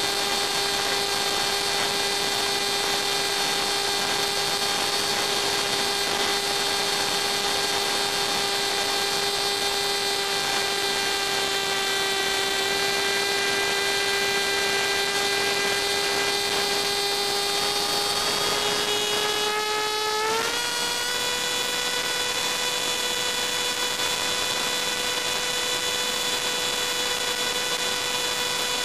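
Brushless electric motor and propeller of a Funjet flying wing whining steadily over a hiss of rushing air, heard from onboard. About two-thirds of the way through the whine rises in pitch and holds at a higher note as the motor speeds up.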